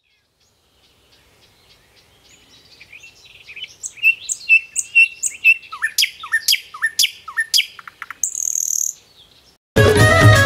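Birds chirping, fading in and growing louder, with a run of quick repeated calls about two a second. A short hiss sounds a little after the eighth second, and music with a steady beat starts suddenly near the end.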